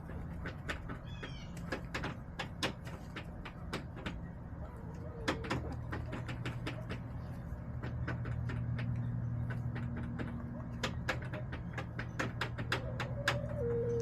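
Chickens pecking: irregular sharp taps of beaks on hard surfaces throughout, over a steady low hum. Near the end a hen gives a drawn-out, wavering low call.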